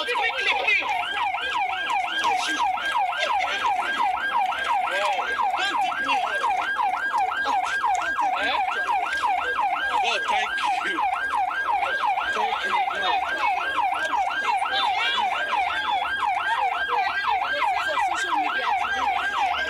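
Emergency vehicle siren in a fast yelp, its pitch sweeping up and down several times a second without a break.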